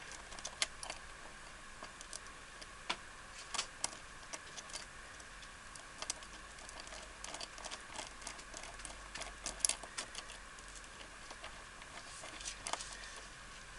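Small metal clicks and ticks of a Cal-lock deadbolt cylinder being reassembled by hand: the retaining ring being turned onto the cylinder while its retaining pin is held down. The clicks come irregularly, a few at a time, over a faint steady hum.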